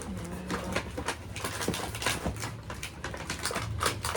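Crinkling and rustling of gift packaging being handled and opened, a quick irregular run of small crackles and clicks.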